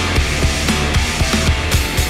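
Background music with a fast, steady drum beat.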